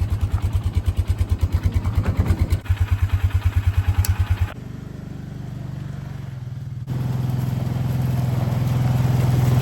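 Vehicle engine running, a fast, even throbbing for the first few seconds, then a smoother steady hum that climbs gradually in pitch in the second half.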